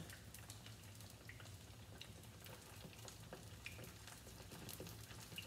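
Plantain slices frying in coconut oil in a skillet: a faint, steady sizzle with scattered small crackles and pops.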